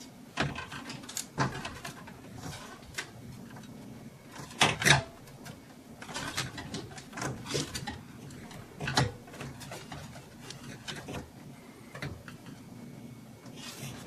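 Handling noise of a motherboard being set down and shifted over the standoffs inside a PC case: scattered light clicks and knocks, with a louder double knock about five seconds in and another knock about nine seconds in.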